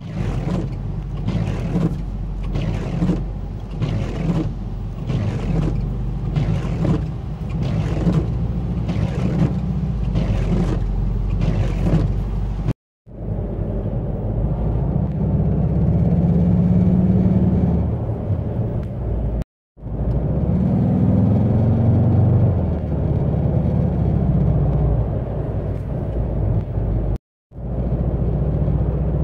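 Brand-new VW's windshield wiper blades chattering across wet glass, a sharp stroke repeating more than once a second over steady car noise; the owner thinks the fault lies beyond the blades, since new blades have not cured it. After that, cabin noise of the VW convertible at highway speed, with an engine hum that rises in pitch once, and the annoying rattle and buzz from the overhead console that holds the lights and microphone, which the dealer calls normal for a convertible.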